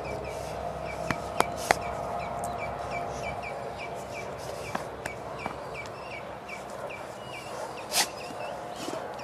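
A bird chirping over and over, three to four short chirps a second, fading out about seven seconds in. A few sharp clicks come just over a second in, and a brief loud scuffing noise about eight seconds in.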